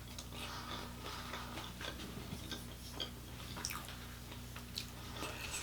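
Close-miked eating sounds: a mouth chewing, with many small wet clicks and smacks scattered irregularly.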